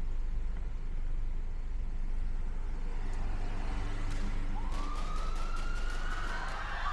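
Steady low rumble that starts suddenly, then a police siren winds up about four and a half seconds in, its wail rising in pitch and then holding high.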